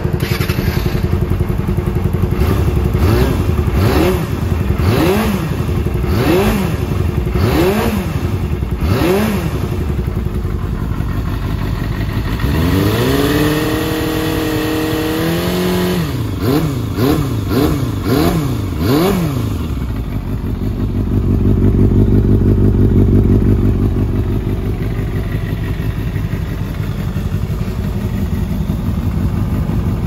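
Suzuki GSX250FX's inline four-cylinder engine breathing through an aftermarket OVER silencer, idling and blipped about six times in quick throttle revs. About halfway through it is held at high revs for a few seconds, then given a fast run of short blips before it settles back to a steady idle.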